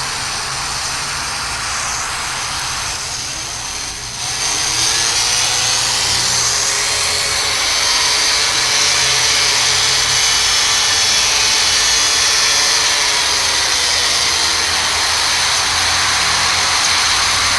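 Loud, harsh static-like noise from a mock emergency alarm, with a low hum and faint wavering tones beneath it. It dips slightly, then grows louder about four seconds in and holds steady.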